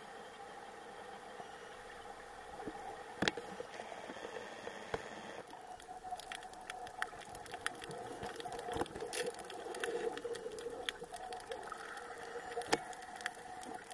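Underwater ambience as picked up by a camera below the surface: a steady hum with scattered sharp clicks and crackles. About five and a half seconds in the sound changes, and the clicks come thicker and faster.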